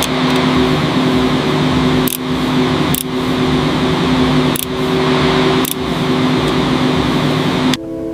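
Steady machinery hum, with about five sharp clanks spread through it, that cuts off abruptly near the end, as a heavy part is lowered into place.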